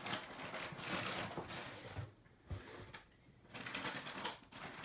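Rustling and crinkling handling noise from a parcel being opened, coming in irregular bursts, with a dull thump about halfway through.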